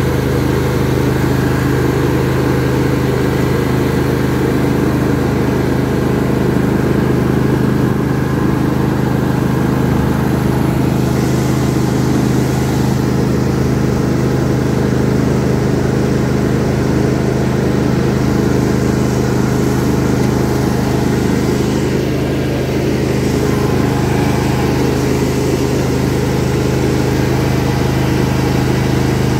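John Deere D140 riding lawn tractor's engine running steadily while the tractor is driven across grass.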